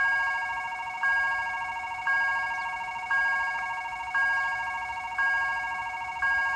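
Railway level-crossing warning signal sounding: an electronic bell strike about once a second, each fading away, over a continuous fluttering alarm tone, warning that a train is approaching.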